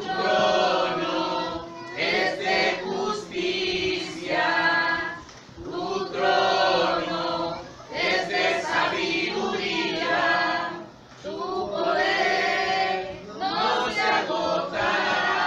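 A congregation singing together, many voices in sung phrases a couple of seconds long with brief dips between them.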